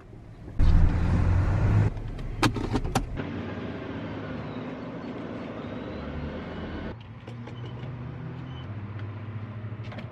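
SUV engine running: it comes in abruptly about half a second in, louder for the first second or so, then settles to a steady lower hum. A few sharp clicks sound at about two and a half to three seconds.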